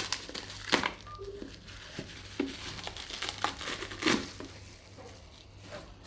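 Packaging crinkling and rustling as a package is handled and unwrapped by hand, in irregular rustles with a few louder crackles about a second in and about four seconds in.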